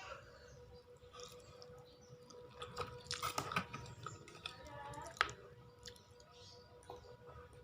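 A person eating close to the microphone: faint wet chewing, with a cluster of crunchier bites about three seconds in and a sharp click a couple of seconds later, over a faint steady hum.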